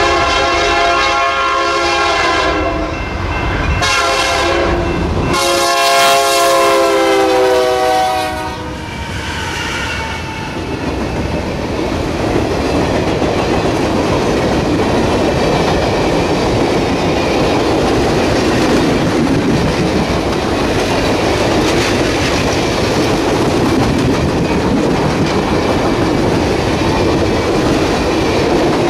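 Diesel locomotive air horn sounding in blasts over the first eight seconds or so, the last long blast dropping in pitch as the locomotive passes close by. Then the long string of circus-train passenger cars rolls past, with steady wheel-and-rail noise and clickety-clack over the rail joints.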